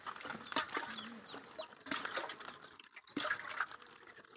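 Freshly caught fish being handled in a woven bamboo basket and a pot of water: a few scattered wet slaps and splashes, with a few short bird chirps in the background.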